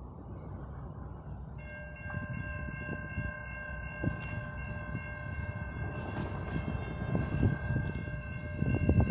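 Horn of an approaching Norfolk Southern GE Dash 9 locomotive, sounding a steady multi-note chord that comes on about a second and a half in and is held from then on. Under it is the low rumble of the train, which grows much louder near the end.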